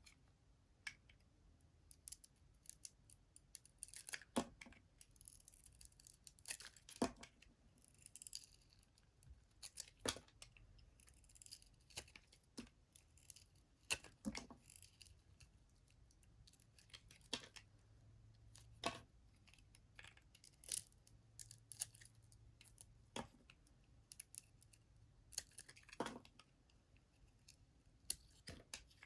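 Dry bar soap being cut with a blade: a long series of crisp cracks and crunches, irregular and close together, with a few longer crackling runs.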